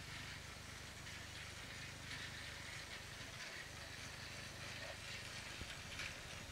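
Battery-powered Plarail toy train running on plastic track: a faint, steady motor whir with light clicking of the wheels on the rails.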